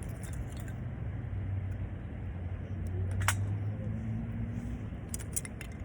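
Wood fire crackling, with a few sharp pops (the strongest about three seconds in, a small cluster near the end), over a steady low rumble.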